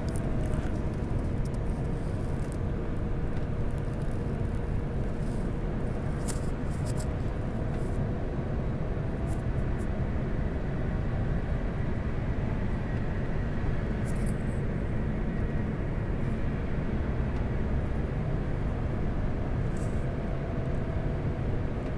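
Steady cabin noise inside an Airbus A350-900 airliner descending toward landing: an even rumble of engines and airflow with faint steady hum tones.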